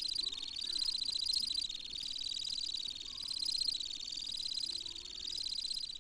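Temminck's stint singing: one long, unbroken high trill of very rapid pulses that wavers gently up and down in pitch.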